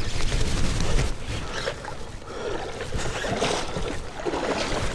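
Rushing river water and sloshing around a wading angler, with rumbling wind and handling noise on a moving camera's microphone.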